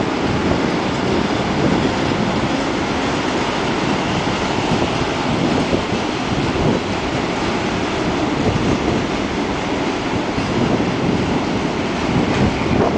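Loaded double-deck car-transporter freight wagons rolling slowly past: a steady noise of wheels on rail.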